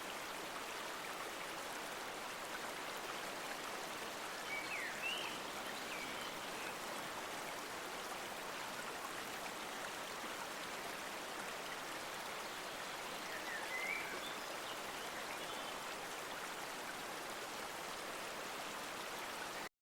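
Light rain falling steadily on leaves, a soft even hiss. Two brief high chirps rise above it, about five seconds in and again near fourteen seconds, and the sound cuts off suddenly near the end.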